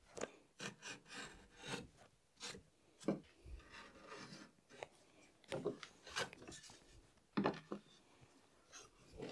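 Short, irregular scraping strokes of a hand tool on wood, about a dozen over nine seconds, easing over the corners and edges of wooden legs.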